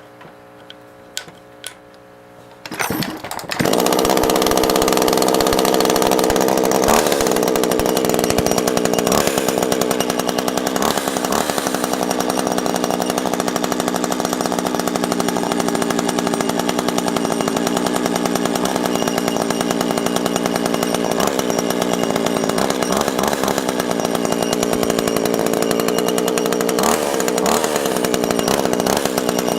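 Maruyama two-stroke chainsaw engine starting up about three and a half seconds in, then running steadily at an even speed. The used saw is running well.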